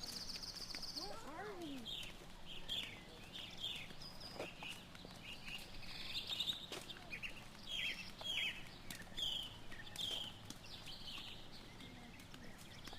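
Small birds chirping over and over in short falling calls, over a faint steady low hum.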